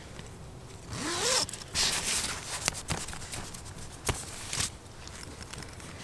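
Tent door zipper being run along in several short pulls, each a quick rasp.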